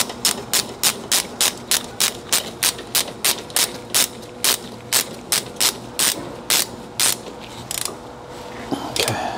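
14 mm ratcheting wrench tightening a rear brake caliper bolt, its pawl clicking on each back-swing. The clicks come about three a second, slow to about two a second, and stop about seven seconds in. A brief clatter follows near the end.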